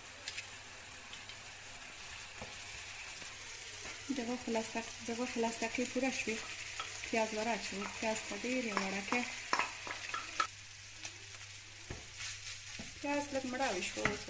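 Beef mince sizzling as it fries in a pan, stirred and scraped with a wooden spoon. The stirring grows louder and choppier from about four seconds in, with a few sharp knocks of the spoon.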